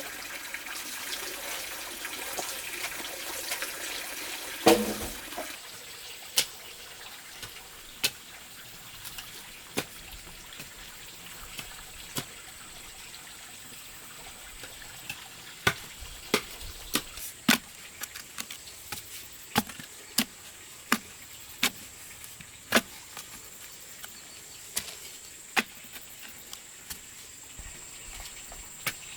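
Water running for about five seconds, cut by one loud thump, then a string of sharp, irregular knocks, one or two a second, over a steady high tone.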